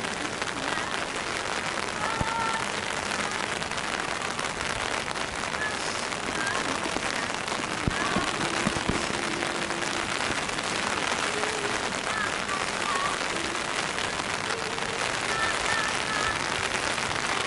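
Steady rain falling on wet pavement, a dense, even hiss of drops.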